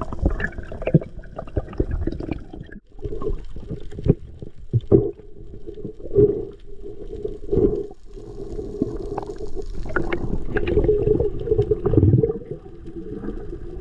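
Muffled underwater sound as a camera picks it up during a freedive: a steady low water rush and gurgle, broken by irregular knocks and clicks.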